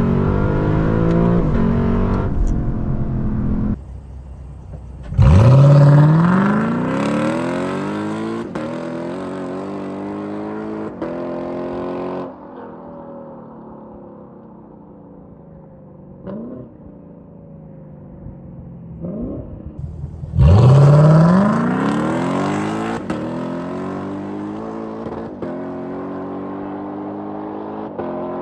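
Lexus LC 500's 2UR-GSE V8 on an aftermarket mid-pipe exhaust. Twice, the engine note jumps in loudly and climbs sharply under hard acceleration, then falls away slowly over several seconds.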